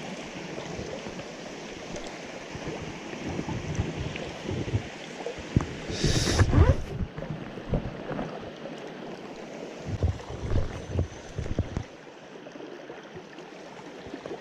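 Mountain stream rushing steadily, with irregular low bumps on the microphone and a brief loud rustle about six seconds in.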